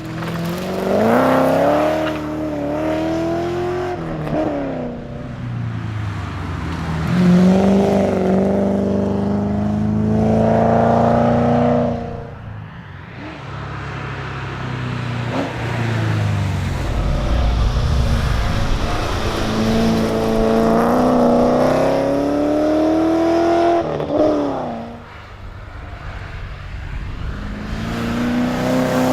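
Ford Falcon Pursuit 250 ute's engine being driven hard on a rally stage. The revs climb in long pulls and drop back sharply at gear changes or lifts about three times.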